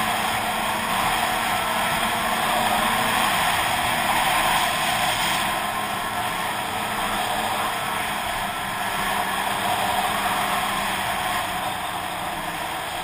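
Snowmobile engine running steadily while under way, a constant drone mixed with a heavy rush of wind and motion noise.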